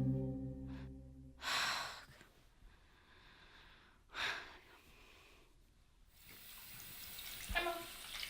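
Two sharp breaths, about two and a half seconds apart. A water tap then starts running about six seconds in, with a small knock near the end.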